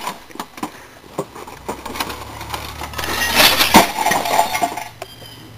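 An old tube TV being stomped and smashed: a string of sharp knocks, cracks and clinks as its cabinet and parts break. The hits come loudest in a cluster about three and a half seconds in.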